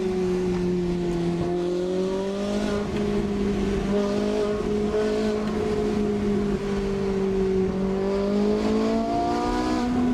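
Stock Ferrari 458 Italia's 4.5-litre V8 running at steady moderate revs in a tunnel. Its pitch climbs over the last two seconds as the car accelerates.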